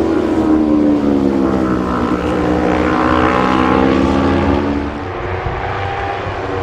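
A pack of racing motorcycles running past together, their engine notes falling in pitch over the first couple of seconds, then holding steady before dropping away about five seconds in.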